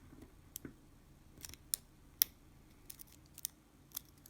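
Sharp, irregular metallic clicks and taps of small tools against the lock's parts, about seven in all, the loudest about two seconds in, as a stuck pin is worked free during disassembly.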